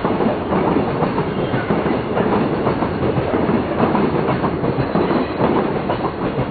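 Container wagons of a freight train rolling past at speed: a continuous rumble of steel wheels on rail, broken by the rapid clickety-clack of wheelsets knocking over rail joints.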